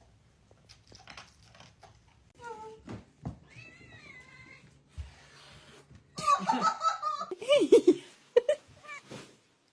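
A cat meowing several times, with a louder, noisier stretch of calls about six to eight seconds in.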